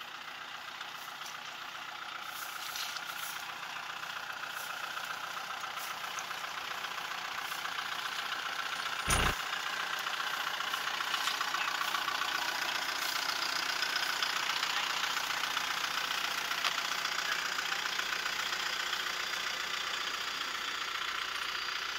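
Tractor diesel engine running steadily, growing louder over the first dozen seconds, with one sharp knock about nine seconds in.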